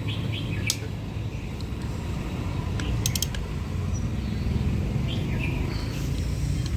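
A steady low rumble throughout, with a few sharp metallic clicks of tools on engine parts as the engine is dismantled: a single click a little under a second in and a quick run of four about three seconds in. Birds chirp faintly.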